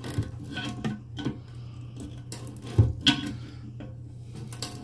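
Slip-joint pliers clicking and knocking against a toilet fill valve's retaining nut under the tank as the nut is unscrewed. The clinks are irregular, the loudest a pair about three seconds in, over a steady low hum.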